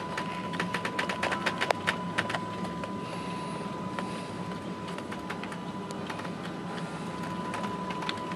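Steady low drone of the ship's machinery heard on the bridge, with a thin steady high tone over it. A flurry of light clicks and rattles comes in the first couple of seconds, then only a few scattered ones.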